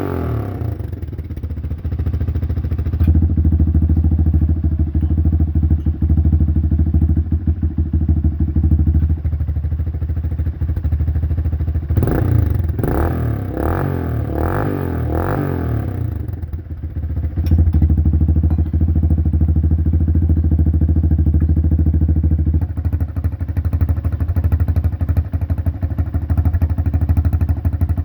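Motorcycle engine running through a homemade exhaust silencer, idling steadily, blipped through several quick revs around the middle before settling back to idle.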